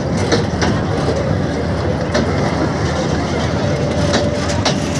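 Carnival ride machinery running: a steady heavy rumble with irregular sharp clicks and rattles from the moving ride.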